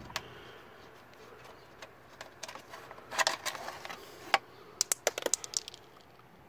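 A hand rummaging inside a Kawasaki KLR 650's plastic airbox intake: irregular clicks and short scrapes as the fingers knock and rub against the plastic, coming in small clusters with a quick run of clicks near the end.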